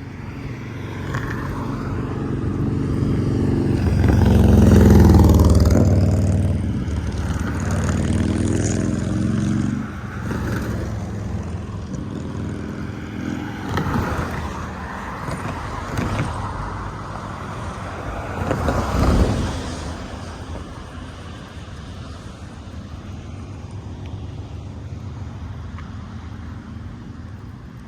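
Road vehicles passing by over wind noise. One loud pass swells and fades about four to seven seconds in, and a shorter pass peaks around nineteen seconds.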